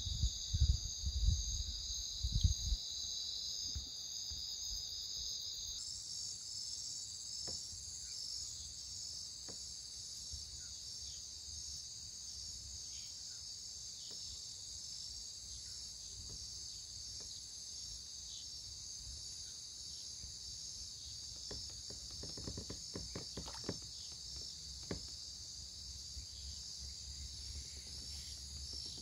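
Night chorus of insects such as crickets in tropical forest: a steady, dense high-pitched trilling. A few low thumps in the first few seconds and some faint knocks later on.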